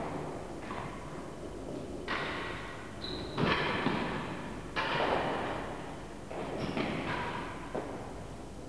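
Real tennis ball strikes echoing around an enclosed court: a sharp knock every second or so as the solid ball is hit by the racket and rebounds off the walls and floor, each knock followed by a ringing echo.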